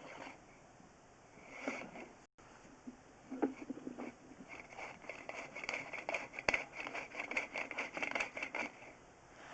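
Sewer inspection camera and its push cable scraping and rattling inside a drain line. There are a few scattered knocks at first, then a dense run of irregular clicking and scraping from about halfway through.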